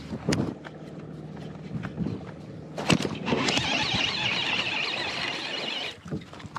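A small fish being reeled in on a baitcasting rod and reel: a few handling knocks, then a hissing rush of about three seconds that stops as the fish is swung clear of the water.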